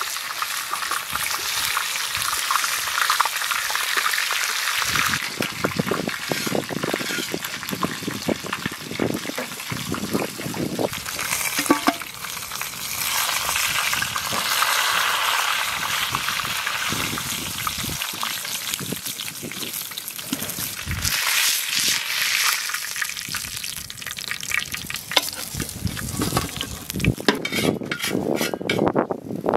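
Pieces of sheep's neck sizzling as they fry in oil on a shallow black pan, with a metal spatula scraping and clicking against the pan as the meat is turned.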